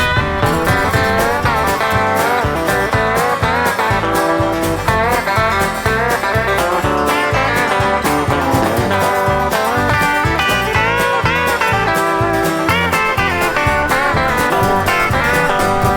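Background music: the instrumental break of an upbeat country song, a lead guitar playing bending notes over a steady beat.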